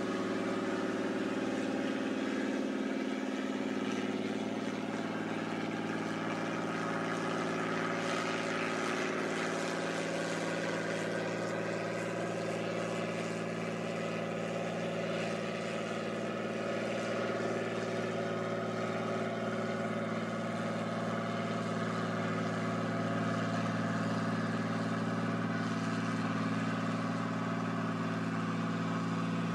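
Cummins 220 diesel engine of a Lima Model 65-T shovel's four-axle truck carrier, running at a steady speed as the carrier drives, with a constant drone that barely changes in pitch.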